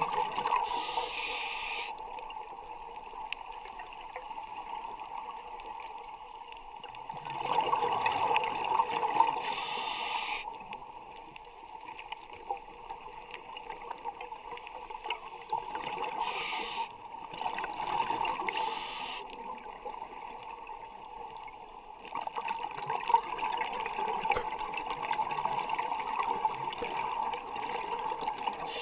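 A scuba diver breathing through the regulator, heard underwater: stretches of bubbling exhalation and short hissing inhalations come in a slow, repeating cycle over a steady underwater background.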